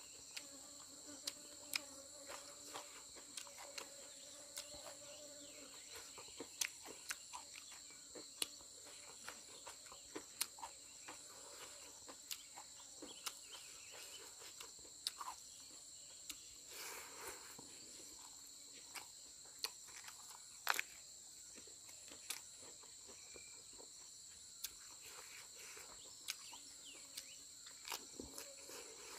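Steady, high-pitched insect chorus chirring without a break, with scattered faint clicks and taps.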